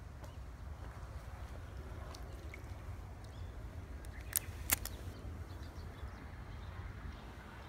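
Low rumble of wind on a phone microphone, with two sharp clicks in quick succession about halfway through.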